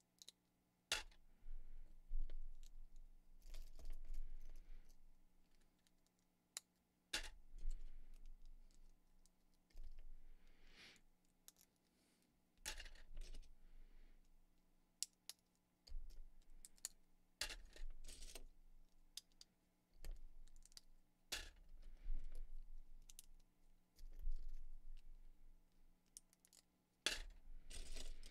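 Plastic Lego pieces (white plates with bar and clip parts) clicking and clattering as they are handled, snapped together and picked out of a loose pile on a table. The clicks come irregularly, about one cluster a second, some with a dull knock.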